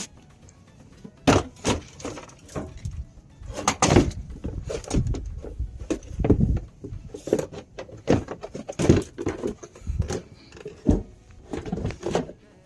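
Irregular knocks, clicks and scrapes of a car's plastic fender liner and its fasteners being worked loose and handled with hand tools.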